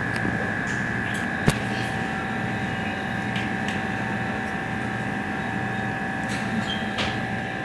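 Steady appliance hum with a thin high whine, and a single sharp click about one and a half seconds in.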